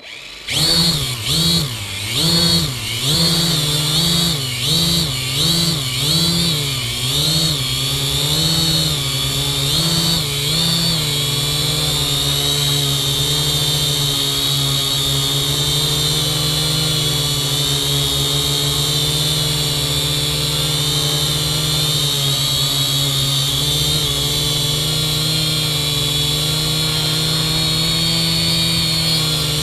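Kaideng K70C quadcopter's motors and propellers spinning up and whining, heard up close from a GoPro mounted on the drone. As it lifts off, the pitch rises and falls about one and a half times a second; after about eleven seconds it settles into a steady hover whine.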